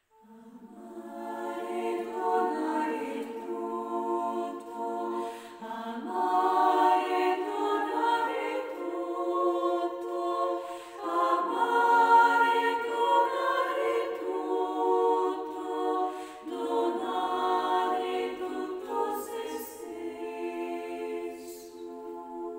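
A choir singing a slow chant without instruments, in long held notes that change every few seconds. It fades in at the start.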